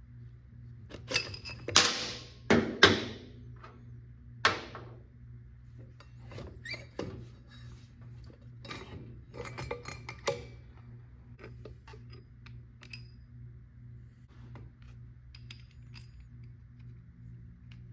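A few loud knocks and clanks of hard objects being set down and handled, then lighter clicks and rattles, over a steady low hum.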